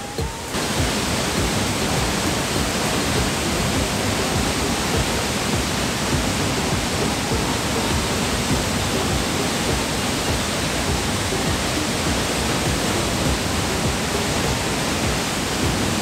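Steady rushing of a very tall waterfall, heard close below it in heavy spray.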